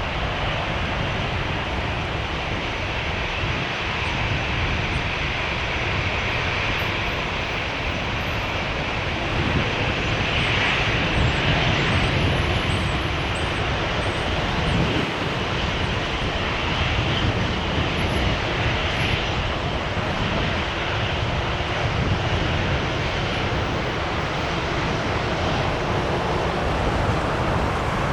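Jet airliner engines, a steady rushing drone that swells a little about ten to thirteen seconds in as the plane passes.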